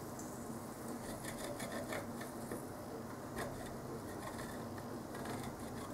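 Soldering iron tip working a large blob of molten solder over a DIP chip's row of pins: a faint, steady hiss with a few soft ticks and light scraping.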